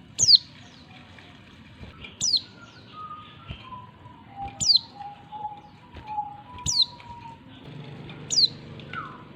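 Female oriental white-eye calling to males: short, sharp high calls that drop steeply in pitch, five of them about two seconds apart. Fainter, lower whistled notes sound between them.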